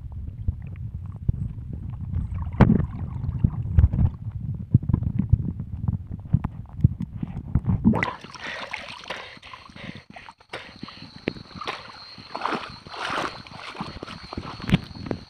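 Underwater camera noise: a muffled low rumble with knocks and bumps from the diver's movement. About eight seconds in the sound turns bright and splashy as water sloshes around the camera near the surface, with a faint steady high tone behind it, and it cuts off suddenly at the end.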